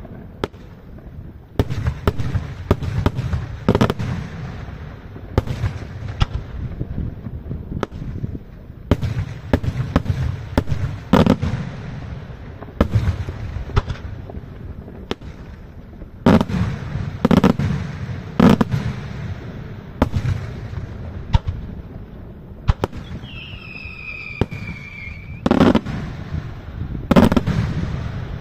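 Daytime aerial fireworks: an irregular, rapid string of shell bursts and firecracker bangs, with several heavier booms in the second half. A whistle falling in pitch lasts about two seconds a little past the middle.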